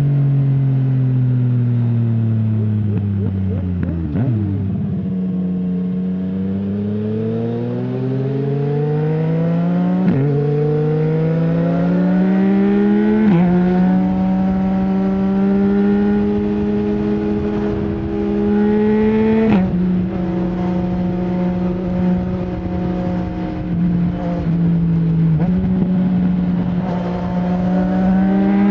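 2020 Yamaha MT-09's three-cylinder engine through an Akrapovic full exhaust without a dB killer, on the move: the note falls as the bike slows for about four seconds, then climbs through the gears with quick shifts that make sudden steps in pitch, holds a steady cruise, and rises again near the end.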